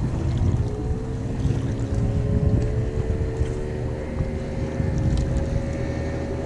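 A motorboat's engine running on the water, a steady hum that rises slightly in pitch over the first couple of seconds. Wind rumbles on the microphone underneath it.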